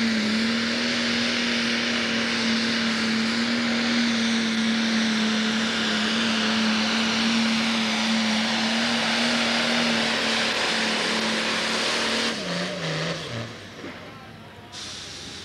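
Turbocharged diesel Pro Stock pulling tractor running wide open under load while it drags the weight-transfer sled, a loud steady engine note. About twelve seconds in the throttle is pulled back and the revs fall away in steps as the tractor comes to a stop.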